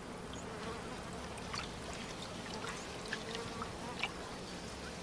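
Faint swamp ambience: a steady low wash of trickling water and insects, with a few brief high chirps scattered through it.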